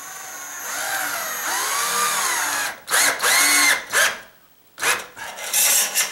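Cordless drill/driver driving a square-drive drywall screw through half-inch drywall into wood, fastening the bottom flange of a grab bar. A run of about two seconds with the motor pitch rising and falling under the trigger, then several short bursts.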